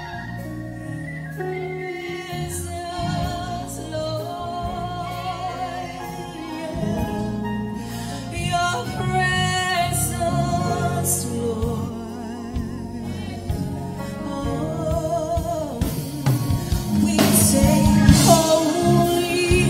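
Gospel worship song: a voice singing over sustained instrumental backing, swelling louder in the last few seconds.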